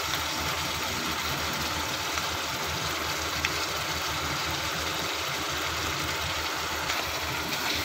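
Steady cooking noise of a vegetable gravy bubbling in a frying pan on the stove, with a low, constant hum underneath.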